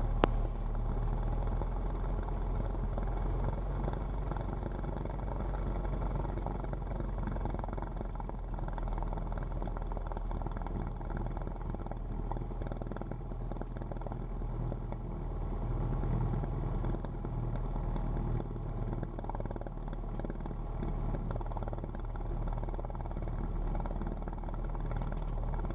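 Cessna's piston aircraft engine running steadily at low power while the plane taxis onto the runway before takeoff, with one sharp click right at the start.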